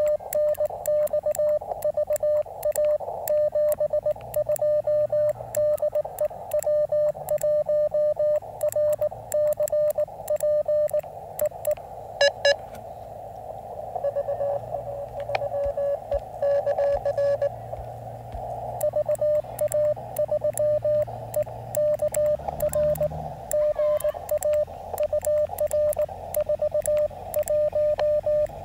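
Morse code (CW) on a QRP ham radio transceiver: a single tone keyed on and off in quick dits and dahs, with band hiss between. About a third of the way in the keying gives way to a fainter, slightly lower-pitched CW signal for several seconds, with a brief pair of higher beeps, before the louder keying returns.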